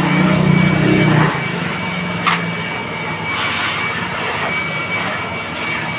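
Hand-held electric air blower running steadily with a high motor whine, blowing dust out of an opened photocopier. A deeper hum is stronger for the first second or so, and a single sharp click comes a little past two seconds in.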